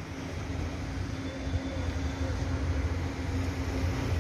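A steady low mechanical rumble with a faint steady hum running through it.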